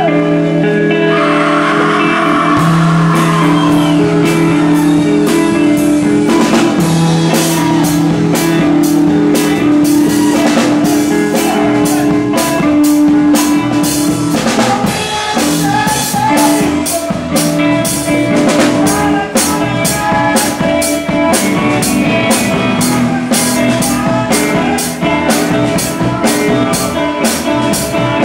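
Live rock band playing through amplifiers: electric guitars hold sustained notes, and the drum kit's steady beat comes in strongly about seven seconds in.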